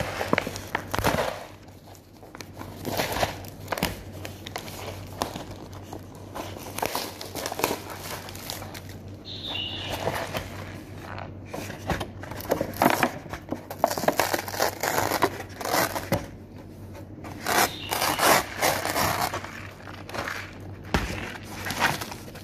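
Plastic and paper packaging of an instant ramyeon bowl crinkling and rustling in irregular spurts as the lid is peeled back and the seasoning sachets are handled.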